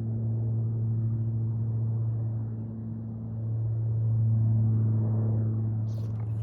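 A steady low motor hum that swells a little about four seconds in and then eases off.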